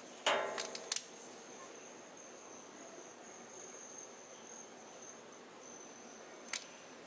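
A steady, high-pitched insect trill, with a short break near the end. In the first second there is a brief scrape and a knock from handling things at a metal burn barrel, and a single click comes near the end.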